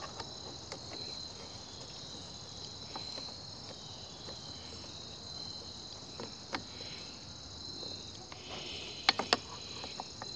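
Crickets chirping in a steady high trill, with a few sharp clicks from a screwdriver tightening screws on a Homelite leaf blower. Two louder clicks come close together near the end.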